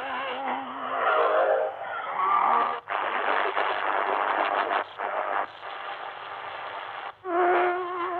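Shortwave broadcast of KCBS Pyongyang on 11680 kHz heard through an XHDATA D-220 radio's speaker, muffled with no treble. A singer with a wavering vibrato is heard for the first two seconds, then several seconds of dense rushing noise with brief sudden dropouts, and the singing returns near the end.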